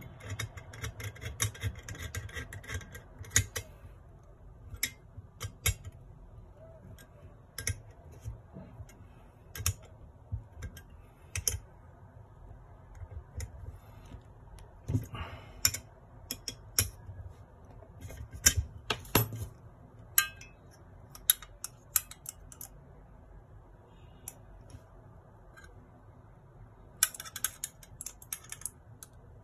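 Small metal parts of a brass model Stirling engine being handled and screwed together: scattered sharp clicks and light metal taps, with quicker runs of clicking near the start and near the end, as a hex key turns small screws.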